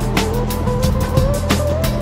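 Background music with a fast, steady beat over deep bass notes, and one clear tone rising slowly in pitch.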